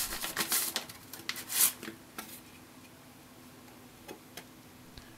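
Soft rustling and scraping of a purple CD sleeve as a software CD is slid out of it by hand, for the first two seconds or so. Then quiet, with a couple of faint clicks.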